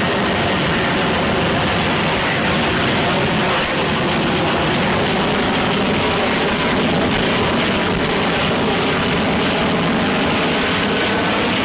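F-35B's F135 turbofan jet engine running loud and steady: a dense, unbroken jet noise with faint steady tones in it.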